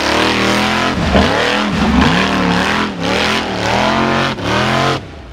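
Formula Offroad buggy's engine revving hard, the pitch falling and climbing again several times in quick succession, then dropping away sharply near the end.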